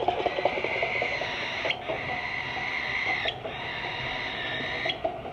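Baby cockatiel begging for food: three long, raspy hissing calls in a row with short breaks between them.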